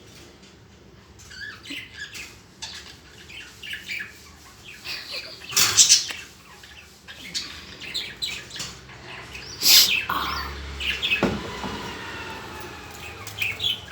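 Birds chirping in many quick, short high calls, starting about a second in, with louder chirps about six and ten seconds in.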